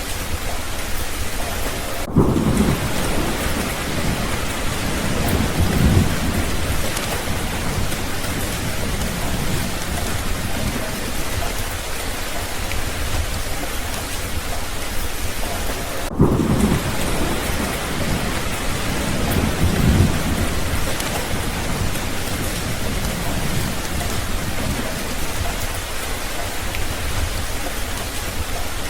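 Steady, heavy rain falling, with low rumbles of thunder swelling now and then. The recording briefly drops out twice, about every fourteen seconds, where it loops.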